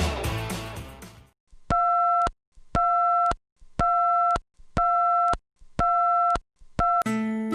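Electronic beep tone repeating about once a second, each beep about half a second of one steady pitch, like a telephone busy tone. Rock music fades out at the start and acoustic guitar music comes in near the end.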